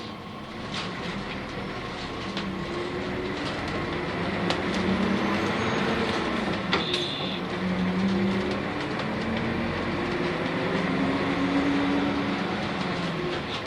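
Interior sound of a Nissan Diesel UA city bus with a PU6 compressed-natural-gas engine and five-speed gearbox, under way: the engine note rises and falls several times, over steady road noise and short rattles from the body.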